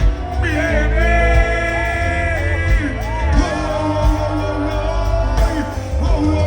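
Live dancehall music played through a festival sound system: a vocalist sings long held notes over a heavy, pounding bass line.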